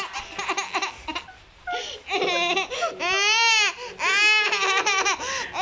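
Playful laughter at first, then two long, high-pitched mock cries about three and four seconds in, each rising and falling in pitch, from a small child and a man roughhousing and kissing.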